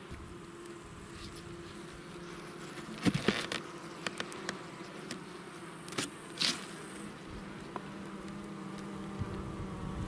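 Honey bees buzzing in a steady hum at a wooden bait trap. A cluster of sharp wooden knocks comes about three seconds in, and more knocks and a short scrape follow around six seconds, as the trap is opened to expose the frame top bars.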